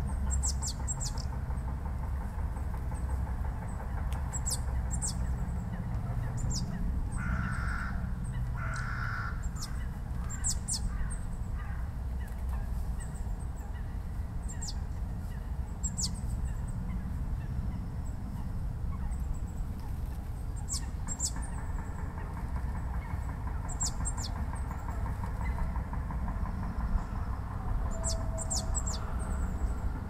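Eurasian blue tit giving short, high, thin calls, one every second or two, over a steady low rumble. Two short honks come about seven and nine seconds in.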